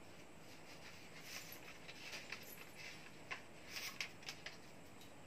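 Faint scratchy strokes against a whiteboard, with a few sharp ticks about three and a half to four and a half seconds in.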